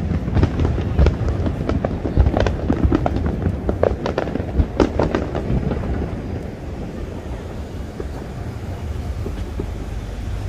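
Aerial fireworks bursting: a rapid run of sharp bangs and crackles over a low rumble, thinning out after about six seconds.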